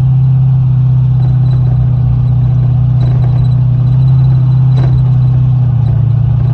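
Loud, steady low drone of a Chevy's V8 and exhaust heard from inside the cabin while cruising, with a slight shift in pitch about two-thirds of the way through.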